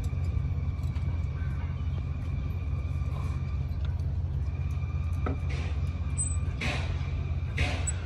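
Rebar being tied with tie wire and pliers: small metallic clicks and a few short rasps of wire twisted around the steel bars in the second half, over a steady low engine-like drone of machinery running.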